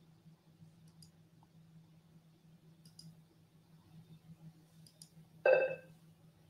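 Faint, sparse clicks, typical of a computer mouse, over a low steady hum, with one short, louder pitched sound about five and a half seconds in.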